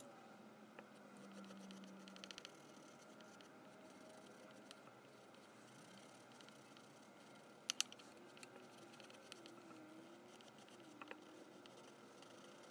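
Near-silent, faint scratching of a crayon being rubbed over paper, with a few short clicks and taps; the loudest is a quick pair a little past the middle.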